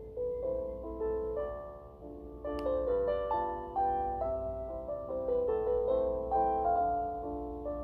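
Background piano music: a gentle melody of single struck notes that ring and fade.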